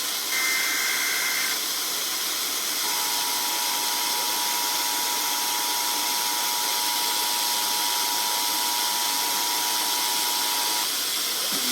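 Emergency Alert System weather radio alert starting over steady radio hiss. A burst of warbling SAME digital header data tones lasts about a second. About three seconds in, the steady two-tone EAS attention signal begins and holds for about eight seconds, announcing a new warning.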